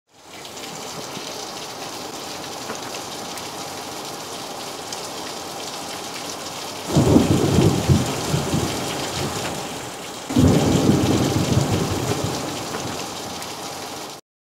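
Steady rain with two claps of thunder, the first about seven seconds in and the second about three seconds later, each rumbling away slowly. The sound cuts off suddenly just before the end.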